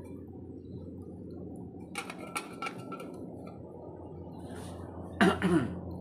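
A few light metallic clinks about two seconds in as the lid of the aluminium mess tin is settled, over a steady low background noise. Near the end comes a short, louder voice-like sound with a bending pitch.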